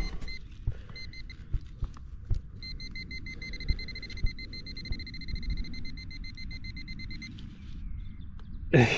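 Handheld metal-detecting pinpointer probing loose soil: a couple of short beeps, then a steady high tone for several seconds as it sits right on a buried silver coin, over soft knocks and scrapes of soil being moved. A sharp gasp comes at the very end.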